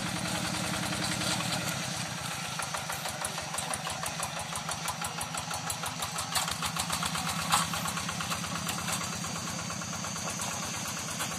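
Single-cylinder diesel engine of a Yanmar Bromo Pro hand tractor running with a steady, rapid knocking beat. Two sharp metallic clanks stand out past the middle, the second the loudest.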